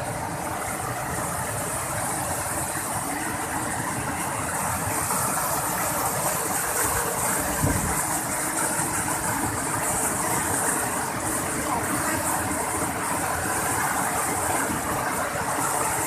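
Steady rush of a waterfall and white-water cascades close by, the water running high and churning.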